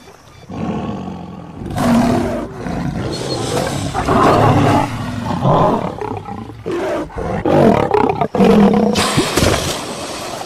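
Male lion roaring at a crocodile in a string of loud, broken roars and growls, starting about half a second in.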